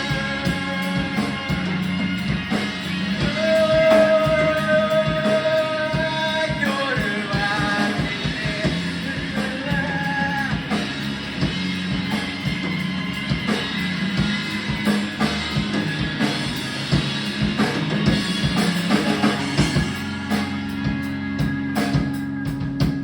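A band playing a rock song: a singer holding long notes over guitar and drum kit.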